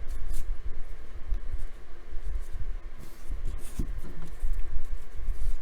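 Paper trading cards being slid and flipped through by hand, a few short brushing swishes with light low knocks from handling against the table.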